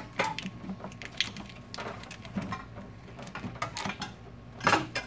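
Transmission dipstick tube being worked into place under the hood, with scattered clicks, knocks and rattles as it is shifted against the surrounding hoses and engine parts. A louder clatter comes near the end.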